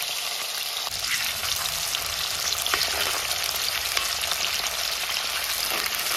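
Banana slices deep-frying in hot oil in an aluminium pan, sizzling and crackling steadily, while a metal spoon stirs them through the oil.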